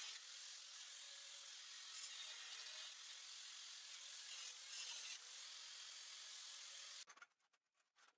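Angle grinder working the rusted steel of a body-mount bracket: a steady hissing grind with a faint motor tone under it, cutting off abruptly about seven seconds in.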